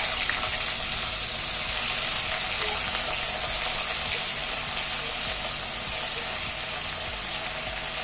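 Bitter gourd (karela) pieces sizzling in hot mustard oil in a kadai, a steady loud hiss that starts as they go into the oil.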